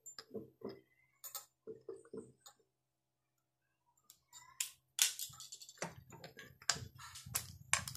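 Small scattered clicks, taps and rustles of hand work: a thin steel cable and rubber tubing being handled, and a tool lifted from a stone tabletop. Quiet for about a second in the middle, then denser clicking and rustling near the end.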